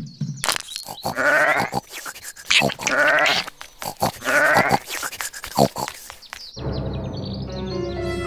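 Three wavering animal calls about a second and a half apart, with sharp clicks and knocks between them. Near the end a low droning music comes in.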